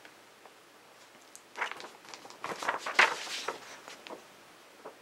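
Paper booklet pages rustling as the booklet is opened and handled, in two short bursts, with a sharper paper snap about three seconds in.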